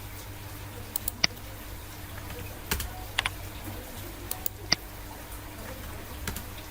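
Computer keyboard typing: scattered single keystrokes, a few short clicks with pauses between them, over a steady low hum.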